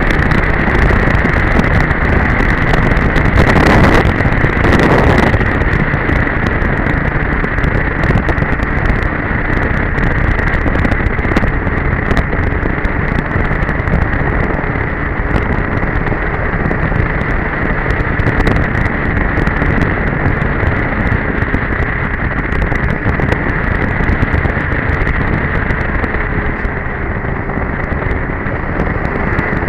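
Two-stroke Polaris Edge snowmobile engine running steadily at trail speed, mixed with wind rushing over the camera microphone, with two brief louder rushes about four and five seconds in.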